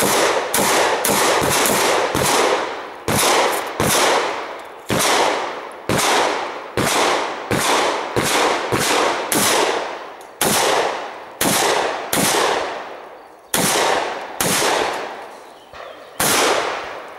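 A shotgun fired over and over in rapid strings, about one to two shots a second, each shot followed by a short echoing tail, with a few brief pauses between strings.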